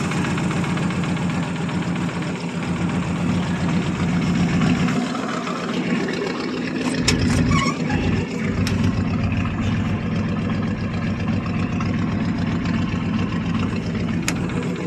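1959 Buick Electra's 401 Nailhead V8 idling steadily, with a few sharp clicks over it.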